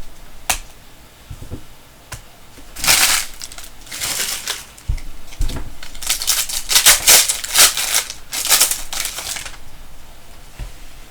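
Crinkling and rustling of a plastic-foil trading-card pack wrapper and cards being handled, in several bursts with a few sharp clicks, the densest stretch about six to nine and a half seconds in.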